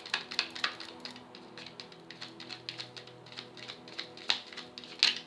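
Tarot cards being shuffled by hand: a run of quick papery card snaps and taps, dense for about the first second and then thinning out, with two louder snaps near the end. Soft steady background music underneath.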